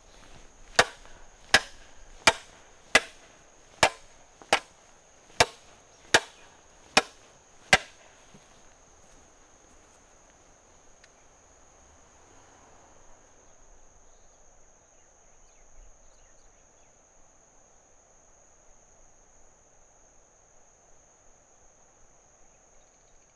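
The reinforced steel blade of a carbon-shafted avalanche shovel struck edge-first into a rock ten times in a steady rhythm, a little faster than one sharp strike a second, testing the front edge's strength; the strikes stop about a third of the way in.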